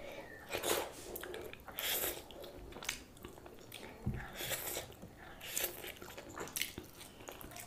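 Close-miked eating sounds of a person chewing and biting into steamed momos and mouthfuls of chow mein noodles: short wet mouth noises about once a second.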